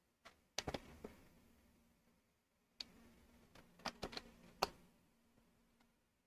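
Plastic Lego pieces clicking as they are handled and fitted: a quick cluster of clicks about half a second in, then another run of sharp clicks from about three to four and a half seconds in.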